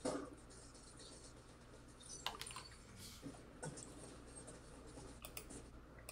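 Faint scattered clicks and scratchy rustling over a low steady hum, with a brief louder rustle at the very start.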